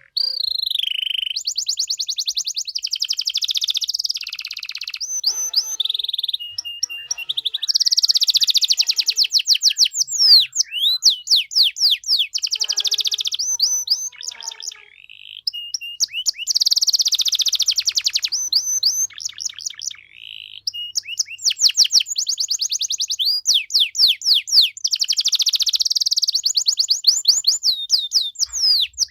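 Domestic canary singing a long, loud song of fast trills and rolls, with rapid repeated notes and quick whistled sweeps, broken by a couple of short pauses.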